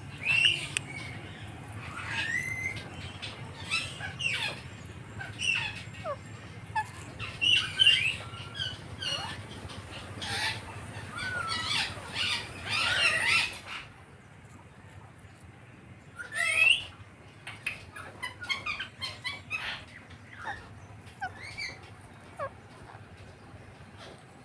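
Pet Indian ringneck parakeet chirping and squawking in many short, rising calls, busy through the first half, then sparser, with one loud call about two-thirds of the way through.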